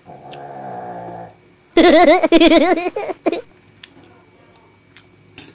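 Snoring: a steady, drawn-out snore lasting a little over a second, then a louder, wavering snore about two seconds in that pulses several times.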